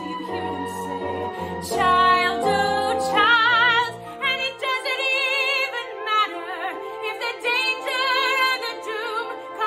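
A woman singing a musical-theatre ballad with strong vibrato over held instrumental accompaniment; the low notes of the accompaniment drop away about halfway through.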